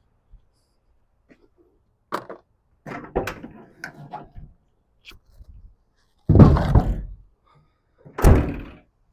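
A door being handled and shut: clicks and rattling knocks, then two heavy thuds about two seconds apart, the first the louder.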